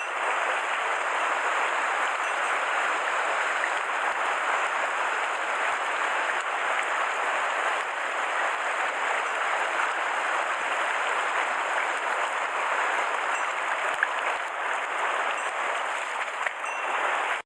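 Mountain stream water rushing in a steady, even hiss.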